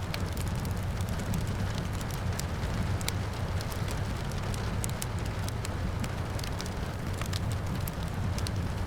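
Wood fire crackling, with frequent irregular sharp pops over a steady low rumble, and rain falling in the background.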